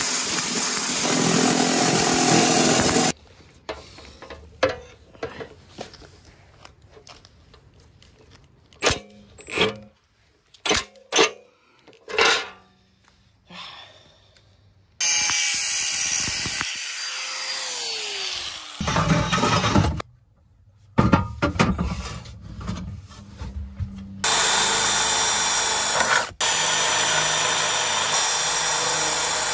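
A cordless reciprocating saw cutting through aluminium diamond plate, which stops about three seconds in. Scattered knocks and short bursts of tool noise follow. From about 24 seconds a cordless drill bores steadily through the aluminium plate.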